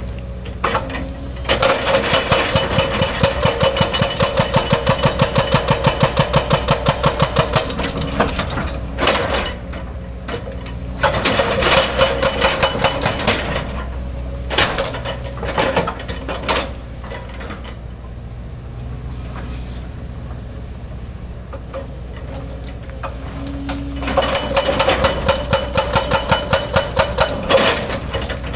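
Hydraulic excavator running under load while its bucket works a rocky cut slope: three bouts of rapid, even knocking, about five a second, near the start, in the middle and near the end, with single knocks between and the engine's steady hum underneath.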